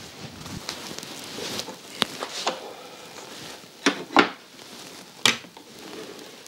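Sharp wooden clicks and knocks, scattered and single, loudest as a pair about four seconds in, from hands turning the wooden wheel dials of a cabinet's strongbox-style locking mechanism.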